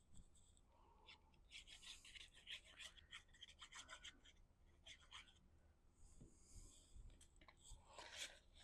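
Faint rubbing and rustling of cardstock being handled and pressed into place, in two spells of short scraping strokes.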